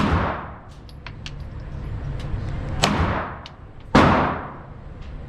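Three loud gunshots, one at the start and two more about three and four seconds in, each followed by a long echoing tail. Fainter sharp cracks sound between them.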